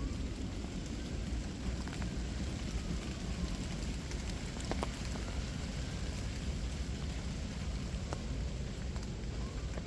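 Steady rain falling, with scattered single drops landing as sharp ticks over an even hiss.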